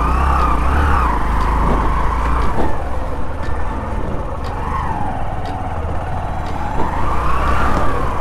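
Hero Passion motorcycle's single-cylinder four-stroke engine running while riding slowly over a rutted, muddy dirt track. Its pitch rises and falls with the throttle, with a few light knocks from the rough ground.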